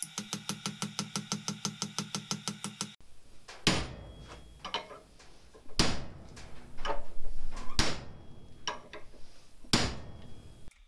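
Background music with a fast beat for the first three seconds. Then a hand hammer strikes the hot end of a steel sucker-rod rivet set stood upright on the anvil: four heavy blows about two seconds apart, with lighter taps between them.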